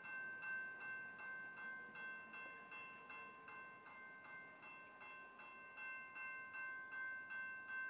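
Railroad grade-crossing warning bell ringing steadily and faintly, about three strikes a second with a sustained ring between strikes.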